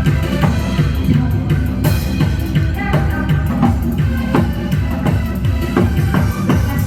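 Janggu, the Korean hourglass drum, struck in quick, dense strokes over loud amplified backing music with a steady beat and melody.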